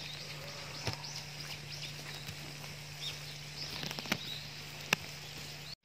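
Small birds chirping: many short, high, falling notes repeated again and again. Sharp taps about a second in and twice near the end. A faint steady low hum underneath.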